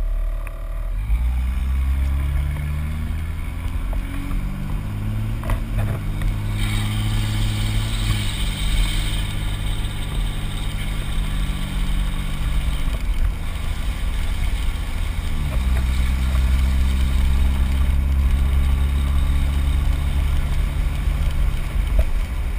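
Straight-piped Cummins inline-six turbo diesel in a Dodge Ram 2500, its muffler deleted, pulling away from a stop and accelerating: the engine note rises in pitch, drops at a shift about five seconds in, rises again and holds steady, then falls to a lower steady cruising note past the middle. A road hiss joins in as speed builds on the wet pavement.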